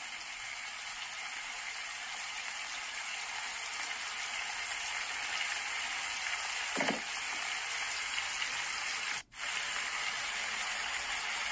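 Sliced matsutake mushrooms sizzling as they fry in hot oil with garlic in a frying pan, a steady hiss that grows slightly louder. There is a soft knock about seven seconds in, and the sound drops out for a moment a little after nine seconds.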